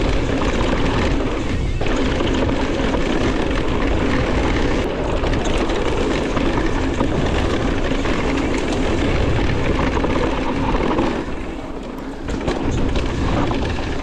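Steady rush of wind over the microphone with tyre noise from a mountain bike riding a fast dirt descent on a gusty day; it eases for a moment about eleven seconds in.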